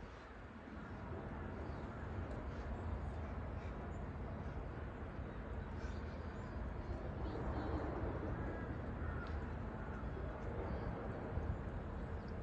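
Steady outdoor background noise with a few faint, short bird calls.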